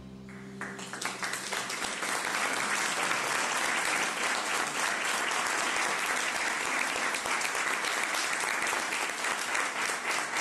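Audience applause that swells in as the final electric guitar chord rings out and fades, then continues as steady clapping.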